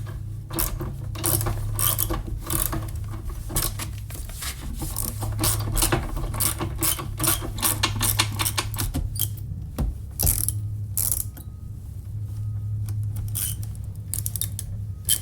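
Ratchet wrench clicking in quick irregular runs while the car battery's tie-downs and terminals are tightened back down, over a steady low hum.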